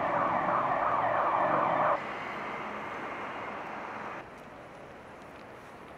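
An emergency vehicle siren in a fast, repeating yelp that cuts off abruptly about two seconds in, followed by steady city traffic noise that drops suddenly quieter about four seconds in.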